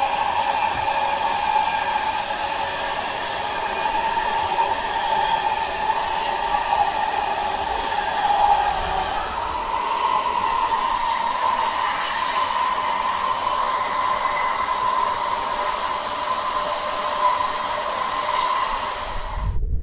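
Onboard running sound of a moving WMATA Metro 3000-series subway car: steady rumble under a loud, held high whine with fainter tones above it and faint clicks. The whine shifts slightly about halfway through and the sound cuts off suddenly just before the end.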